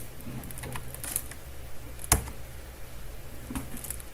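Scattered computer keyboard and mouse clicks over a steady low hum, with one sharper click about two seconds in.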